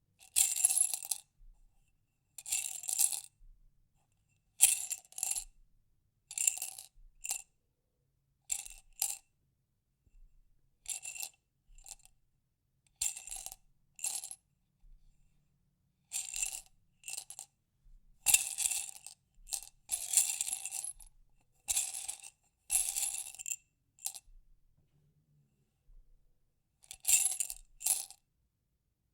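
Small hard objects rattling and clinking inside a glass jar, in about fifteen separate bursts of half a second to a second and a half, with short silent pauses between them.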